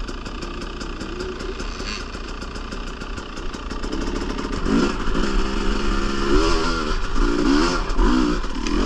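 Dirt bike engine running steadily, then revved up and down repeatedly from about halfway through.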